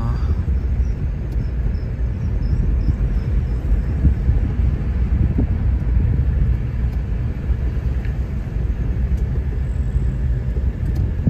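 Car driving along a road, heard from inside the cabin: a steady low rumble of engine and road noise.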